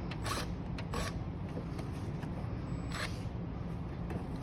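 A few short rustles and scrapes of hands working at a car's plastic B-pillar trim panel, tugging at it where it is held by a clip at the top, over a steady low hum.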